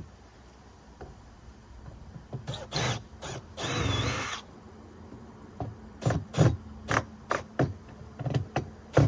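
A power drill runs for about a second to back out a screw, after a few short buzzes. It is followed by a string of sharp knocks and rattles as hardware and panels are handled.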